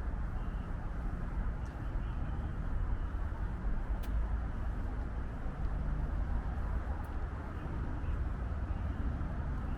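Wind buffeting the DJI Pocket 2's built-in microphone: a steady low rumbling noise with no letup, as the camera is carried along outdoors.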